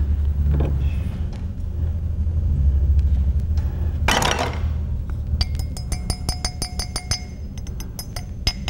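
Steel punch clinking against a boxlock shotgun's steel action while the cam is worked out of its driven-in joint. A run of light, irregular metallic clinks, each with a short ring, starts about five and a half seconds in.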